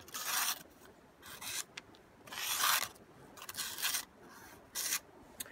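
A sharpened folding knife blade slicing through a printed paper sheet in about five short, scratchy cuts with pauses between them. This is a paper-cutting test of the edge's sharpness.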